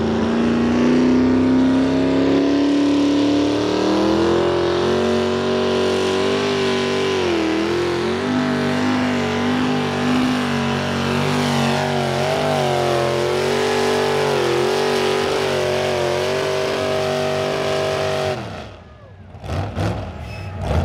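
Small-block V8 engine of a modified pulling tractor running hard under load as it drags a weight-transfer sled, its pitch climbing slightly at first, then wavering as the engine speed rises and falls. The sound cuts off abruptly near the end.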